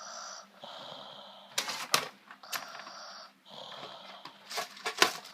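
Loud, wheezy snoring: breath after breath, each just under a second long. About two seconds in and again near the end come clusters of sharp clicks, the loudest sounds.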